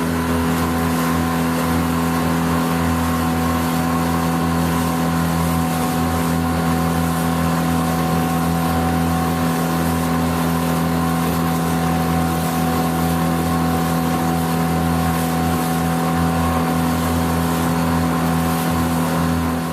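Motorboat engine running steadily at one constant speed, a level hum under an even hiss.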